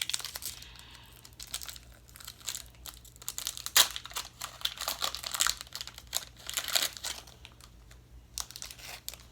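Foil Pokémon booster pack wrapper crinkling and crackling as it is handled and torn open, with one sharper crack a little under four seconds in.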